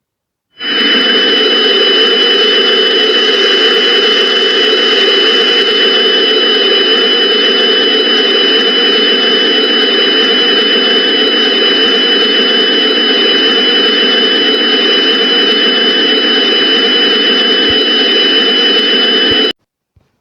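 Loud, steady droning noise with two high, steady whistling tones over it: an Emergency Alert System-style background loop. It swells in about half a second in and cuts off abruptly about a second before the end.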